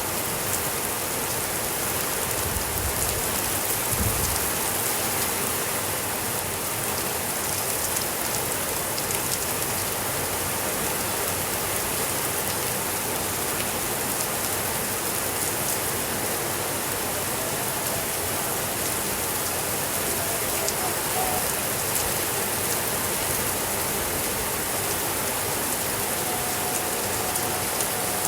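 Steady rainfall: an even hiss of rain with scattered sharper drop sounds.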